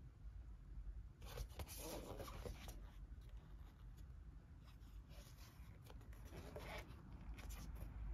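Faint rubbing and scraping of a large cardboard game map tile being handled and turned, with scattered brief rustles.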